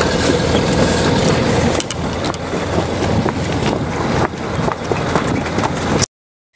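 Wind and water rushing past a sailboat under way, a steady noisy rush with many small clicks and splashes. It cuts off abruptly to silence about six seconds in.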